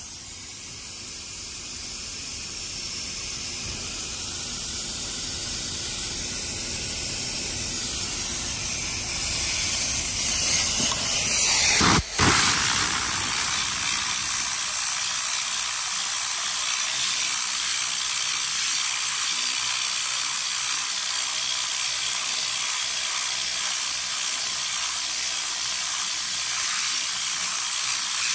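Steam cleaner jetting through a round nylon brush attachment as it scrubs a foamed plastic door panel: a rush that grows louder over the first twelve seconds, a sudden break, then a steady high hiss.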